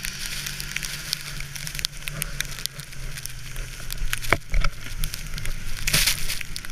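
Sled runners hissing over snow behind a snowmobile, with many crackling clicks and knocks from bumps and snow striking the camera, over the steady low hum of the snowmobile's engine ahead. About six seconds in, a louder rush of snow spray hits the camera.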